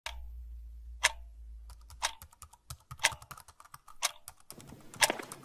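Typing on a computer keyboard: a sharp click about once a second, with lighter, irregular keystrokes between.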